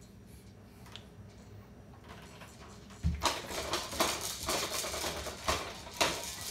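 Baby bouncing in a Fisher-Price Jumperoo bouncer. About halfway in there is a sudden start of irregular knocks and rattles from the seat and frame, roughly two a second.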